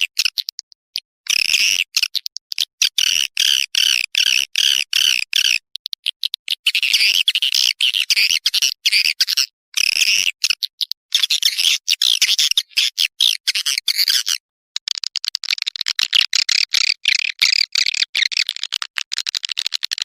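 Recorded swiftlet calls played as a lure: loud, rapid, buzzy chattering twitters in bursts separated by short silences. From about three-quarters of the way through, a denser, higher run of fast clicking chatter.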